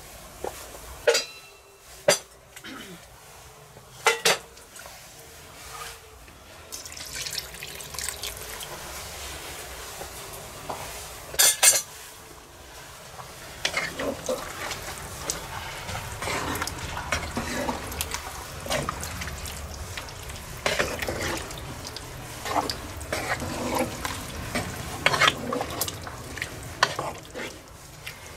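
Meat broth poured into a cast-iron Dutch oven of sausage and pepper stew, then a wooden spatula stirring through the wet, simmering stew with small clicks and bubbling. A few sharp knocks sound in the first dozen seconds, the loudest about twelve seconds in.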